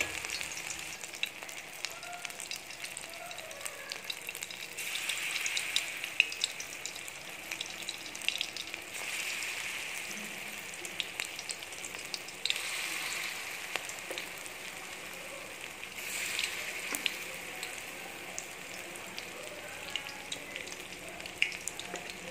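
Spoonfuls of pakora batter frying in hot oil in an aluminium wok: a steady sizzle that flares up about four times as fresh spoonfuls go in, with scattered small clicks.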